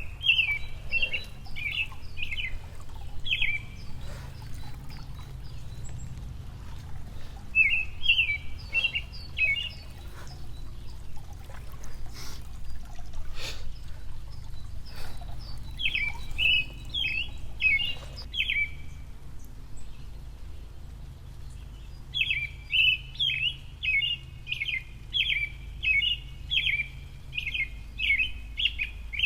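A songbird singing in phrases of quick, repeated notes, with pauses between phrases, then a long unbroken run of notes in the last several seconds. A few faint knocks in between.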